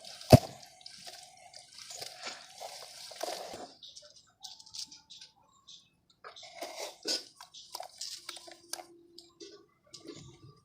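Dry mud crumbling into water: one sharp splashing knock about a third of a second in, then irregular drips, crackles and small splashes that thin out to sparse faint crackles in the second half.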